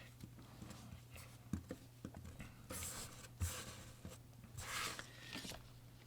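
Faint rustling and small clicks of hands working a handful of colour-changing play sand, with two brief soft hissing rustles about three and five seconds in. A steady low hum runs underneath.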